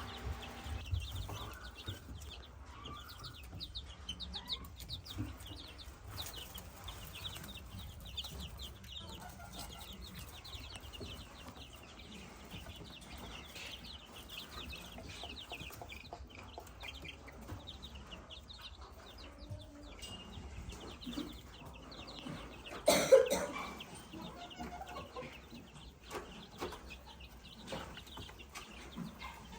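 A brood of week-old chicks peeping, many short high cheeps overlapping almost without pause. A brief louder sound breaks in about 23 seconds in.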